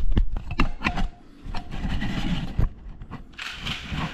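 Camera handling noise close to the microphone: several sharp clicks and knocks in the first second, then rubbing and scraping as the camera is fitted onto a small tripod.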